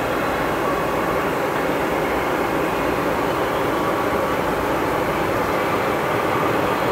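Boeing 757-200 climbing out after takeoff, heard from far off on the ground: the steady, even rushing noise of its two Rolls-Royce RB211 jet engines at climb power.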